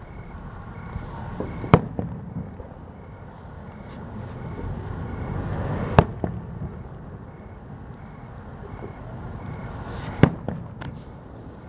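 Aerial firework shells bursting overhead: three loud booms about four seconds apart, each followed shortly by a fainter report, over a low rumble.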